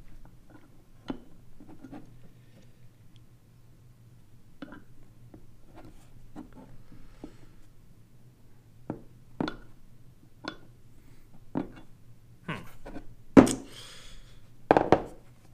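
Light clicks and taps of a metal pistol slide and small sight parts being handled on a tabletop while suppressor-height sights are fitted, with a few louder knocks near the end.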